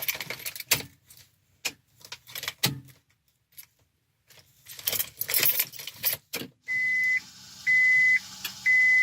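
Car keys jangling and clicking at the Honda Accord's ignition. From about seven seconds in, a steady high beep repeats about once a second as the ignition comes on.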